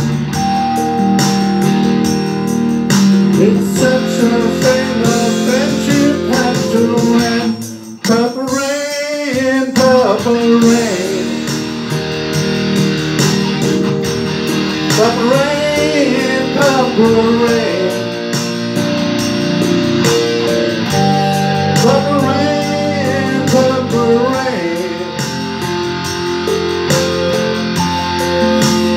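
An electric guitar plays a lead line with string bends and wide vibrato over a backing track of held chords. The music briefly drops out about a quarter of the way in, then a long wavering held note follows.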